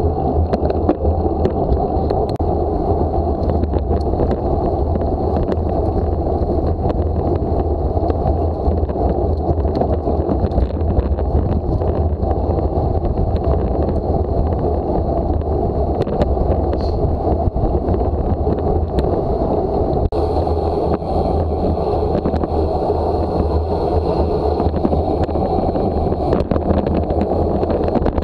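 Wind rushing over an action camera's microphone on a moving road bike: a steady low rumble mixed with tyre and road noise, with a few faint ticks from bumps.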